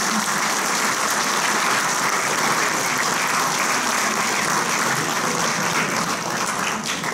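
Audience applauding: a dense, steady clapping from a roomful of people that eases off near the end.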